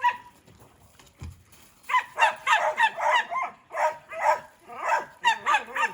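Dogs barking and yapping, a quick run of short, high barks that starts about two seconds in and keeps going.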